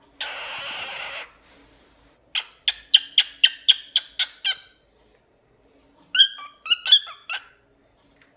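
Lutino cockatiel vocalizing: a harsh, noisy call lasting about a second, then a quick run of about nine sharp chirps at roughly four a second, then a short phrase of clear whistled notes.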